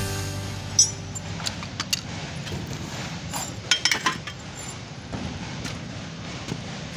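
Scattered sharp metallic clinks and taps over a steady background hiss, with a quick cluster of them about three and a half to four seconds in.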